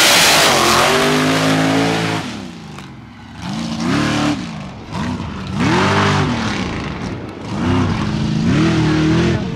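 Supercharged methanol-burning mega truck engine launching at full throttle, then revving up and easing off several times, its pitch rising and falling as it pulls away down the track.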